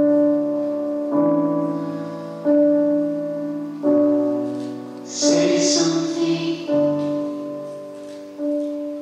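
Slow piano music: a chord struck about every second and a half, each left to ring and fade.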